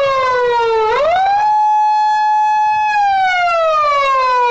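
Police car siren wailing: the tone slides down, climbs quickly about a second in, holds a high steady note for about two seconds, then falls slowly again.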